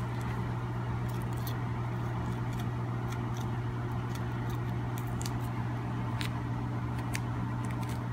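A steady low hum throughout, with faint scattered small ticks and clicks as a skinning knife cuts the membrane of a wolf foot's hide.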